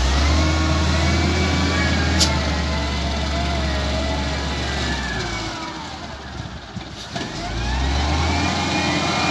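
XCMG LW300KN wheel loader's diesel engine revving under load, easing off about five and a half seconds in and revving up again near the end.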